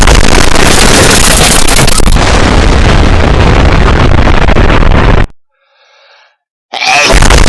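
A very loud, distorted explosion sound effect that cuts off suddenly about five seconds in. A faint hedgehog sneeze follows, and then another explosion blast starts near the end.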